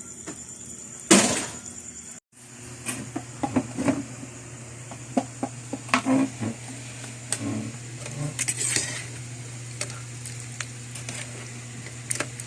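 Cooking pot and metal utensils clinking and knocking irregularly, with one louder clatter about a second in. A steady low hum runs underneath from about two seconds in.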